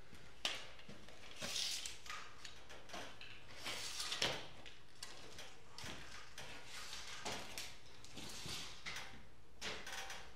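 Wooden beams being handled and shifted: a scattering of irregular scrapes and knocks.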